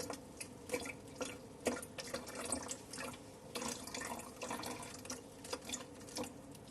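Vinegar being poured and dripping into an empty plastic water bottle: a run of small, irregular splashes and drips.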